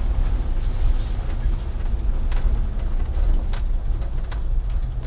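Vintage Chevrolet pickup under way, heard from inside the cab: a steady low rumble of engine and road noise, with a few light rattles or clicks in the second half.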